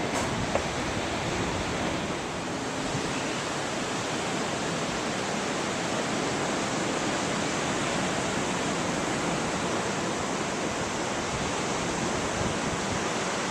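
Steady rushing noise of ocean surf with wind, even throughout.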